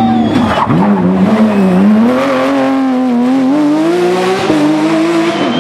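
Porsche 911 GT3 rally car's flat-six engine at full effort on a tarmac stage. Its note drops sharply about half a second in, then climbs steadily through the revs, with a shift about four and a half seconds in.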